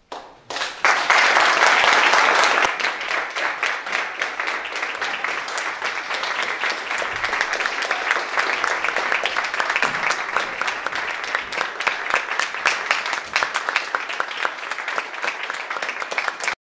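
Audience applauding, dense clapping with many individual claps. It starts about half a second in, is loudest over the next two seconds, then carries on steadily and cuts off suddenly near the end.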